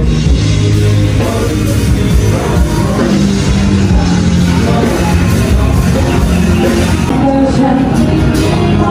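Loud rock-style music with singing.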